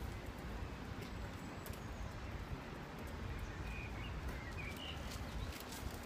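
Outdoor background: a steady low rumble with scattered light clicks, and a few short bird chirps in the middle.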